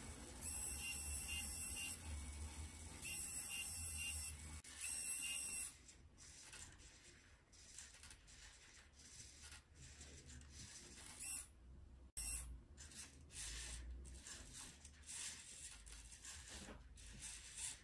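Small hobby servo motors and an electric linear actuator in a wooden model excavator whirring and buzzing faintly as the arm and bucket move, with three short bursts of high-pitched whine in the first six seconds, then light clicks and rattles.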